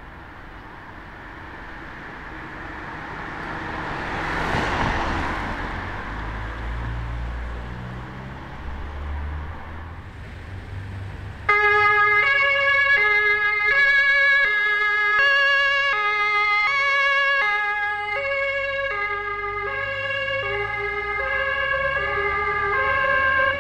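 An emergency vehicle drives past without a siren, its engine and tyre noise swelling and fading. About halfway through, a German two-tone emergency siren (Martinshorn) switches on suddenly and sounds loudly, alternating between a high and a low note about every half second.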